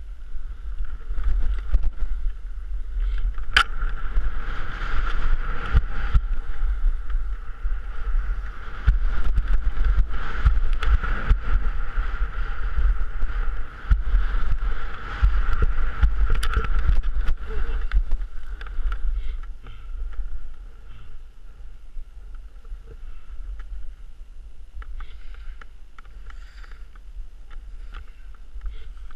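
Skis scraping and chattering over packed, bumpy snow during a run, with wind buffeting the action camera's microphone as a heavy rumble. The noise eases off for the last several seconds.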